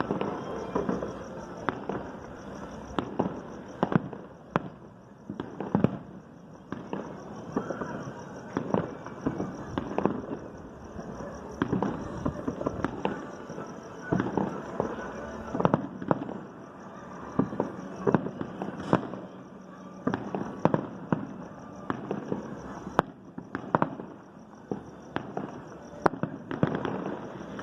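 Fireworks and firecrackers going off in a continuous irregular barrage of sharp pops and bangs, several a second, with a few louder reports standing out, over a steady high pulsing chirr.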